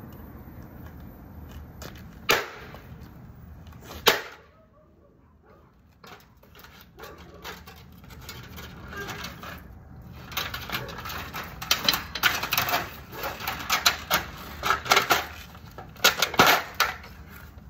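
Knocks and clattering from a television set being taken apart by hand. Two sharp knocks come a few seconds in, then a long run of quick clicks and rattles.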